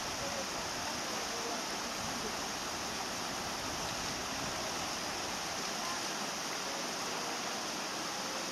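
Steady, even hiss of outdoor background noise with no distinct events.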